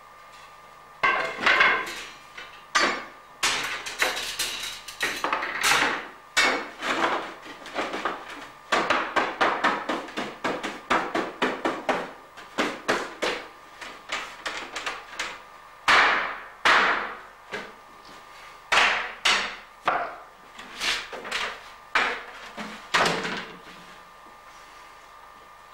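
Irregular sharp wooden knocks and clatter of a cooper setting up oak barrel staves inside a hoop, fitting and knocking them into place to raise a herring barrel. The knocks start about a second in, some coming in quick runs.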